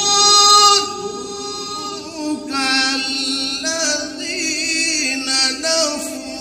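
A man reciting the Quran in Arabic in the melodic tajweed style, holding long notes and bending them in ornamented turns.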